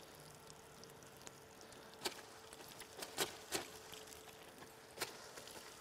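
Faint spray of a garden hose splashing onto a running metal-housed golf cart battery charger, over the steady hum of the charger's cooling fan. A few sharp taps come through from about two seconds in.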